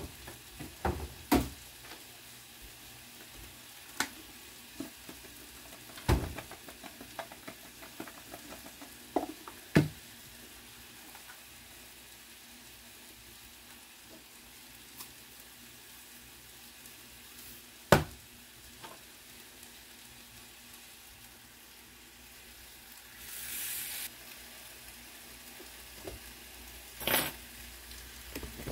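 Chicken frying in a cast-iron skillet with a steady sizzle, while red potatoes are mashed in a pot beside it: a scattering of sharp knocks of the potato masher against the pot, the loudest about eighteen seconds in.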